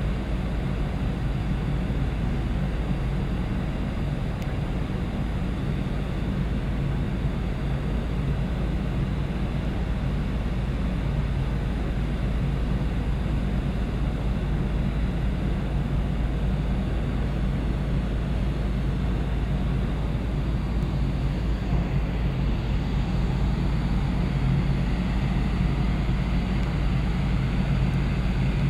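Steady low rumble and hum of a large car ferry under way, its engines and deck machinery heard from the open deck, growing slightly louder near the end.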